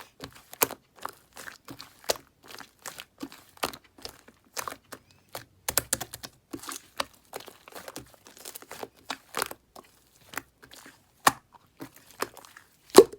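Slime with a layer of trapped air bubbles being pressed and pulled by hand, giving an irregular run of crackling pops and clicks, with one sharp, louder pop near the end.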